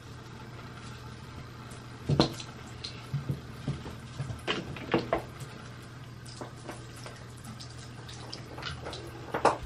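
Scattered small clicks and knocks, a few at a time, over a steady low hum.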